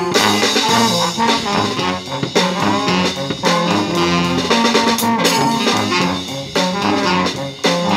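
Brass band playing: a sousaphone bass line under saxophones, trumpet and trombone, with drums keeping the beat.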